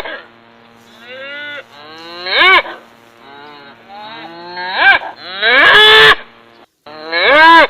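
Cattle mooing: a run of about four loud moos plus a fainter one, each call rising and then falling in pitch.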